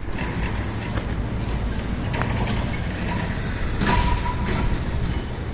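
Outdoor street noise: a steady low rumble with a few sharp clatters, loudest about four seconds in.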